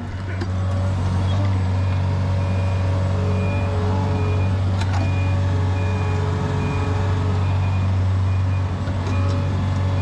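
A heavy earthmoving machine's engine running steadily, with the quieter repeating beep of a reversing alarm coming in about two seconds in and going on until near the end.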